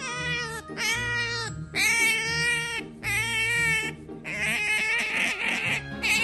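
Pet otter whining while being petted: a series of high, wavering squeaky calls, about four of them under a second each, then a longer, rougher squeal near the end.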